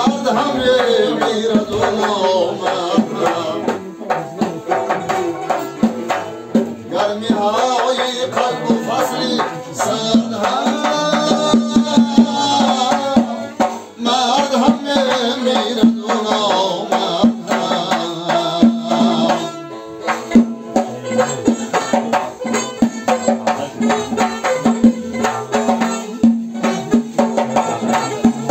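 Tajik folk music played live: a doira frame drum beating a steady rhythm under a long-necked lute, with a man's singing voice coming and going.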